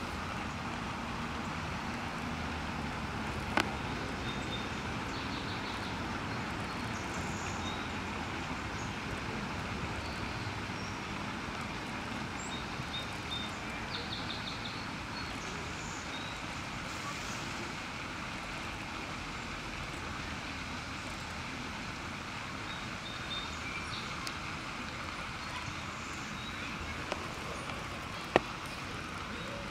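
Steady hum of distant road traffic, with faint short high bird chirps now and then and two sharp clicks, one a few seconds in and one near the end.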